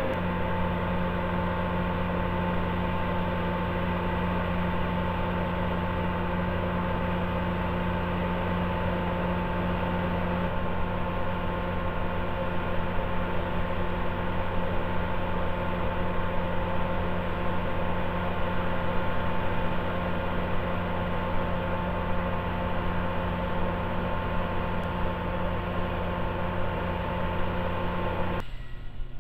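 LORAM RG402 rail grinder's diesel power units running with a steady, even hum and drone of engine and machinery tones, which drops away suddenly near the end.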